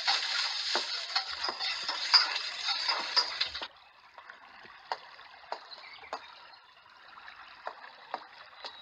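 Water running in a garden stream: a louder rush for the first three and a half seconds, then a softer steady trickle with faint small drips.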